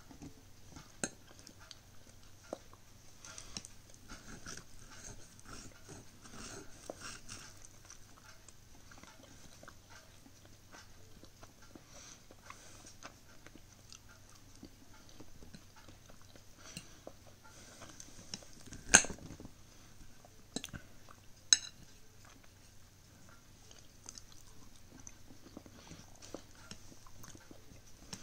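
Close-up chewing and mouth sounds of someone eating a homemade pastry, with scattered sharp clinks of a knife and fork against a ceramic plate; the two loudest clinks come about two-thirds of the way through.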